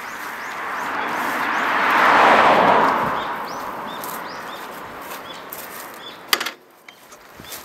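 A vehicle passing on the road: a rush of tyre noise swells to a peak about two seconds in and fades away. Small birds chirp throughout, and there is a sharp click about six seconds in.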